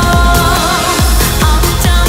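Background music with a steady drum beat and a wavering melody line over it.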